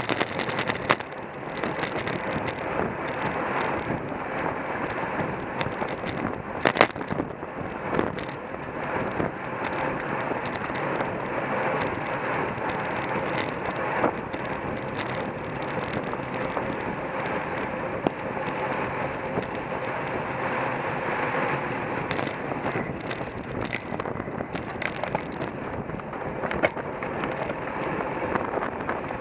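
Road bicycles moving at race speed: a steady rush of wind and the whir of tyres and drivetrains, with a few sharp clicks.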